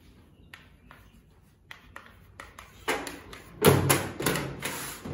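Small taps and knocks of pens and hands on a metal tabletop with paper cards being handled: faint scattered clicks at first, then a run of louder knocks and rustling from about three seconds in.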